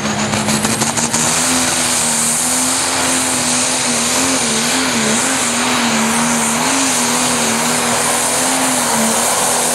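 A Pro Stock pulling tractor's turbocharged diesel engine at full throttle under load while it drags the sled. The steady, loud engine note wavers slightly in pitch.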